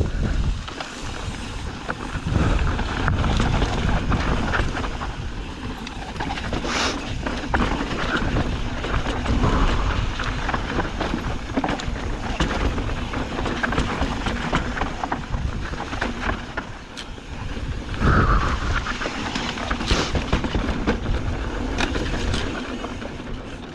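Mountain bike riding fast down a rough dirt trail: wind buffeting the camera microphone over the crunch of tyres on dirt and rock, with the bike knocking and rattling over bumps throughout.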